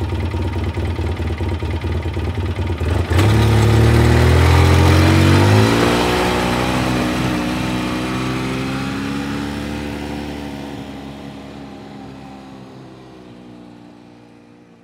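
ATV engine idling with a throbbing beat. About three seconds in it suddenly gets louder and revs up, its pitch climbing, then it holds a steady pitch while the sound fades out gradually.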